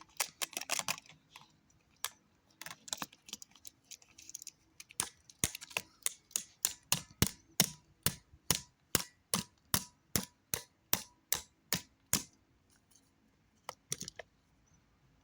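Sharp plastic clicks and taps on a remote control: a quick cluster at first, then an even run of about three taps a second for several seconds, stopping, with two more near the end.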